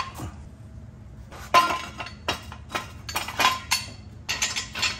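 Metal-on-metal clanks and rattles of a jack stand and a car exhaust pipe: a knock as the stand is set down, then a string of short clinks and rattles from about a second and a half in, as the pipe is shifted and settled onto the stand.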